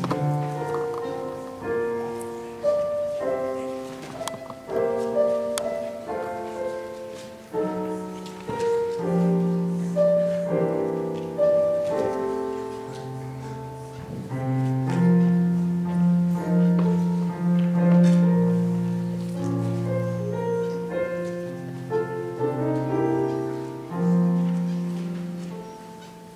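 Solo piano music: chords struck and left to ring, over bass notes held for several seconds.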